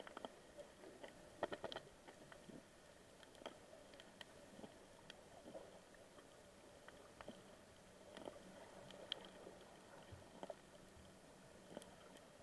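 Faint underwater reef ambience: a low hiss with scattered short clicks and crackles, including a brief cluster of louder clicks about a second and a half in.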